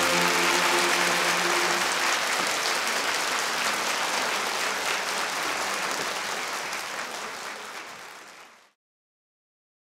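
A large concert-hall audience applauding, with the male choir's last chord and the piano dying away under it during the first couple of seconds. The applause fades out about eight seconds in.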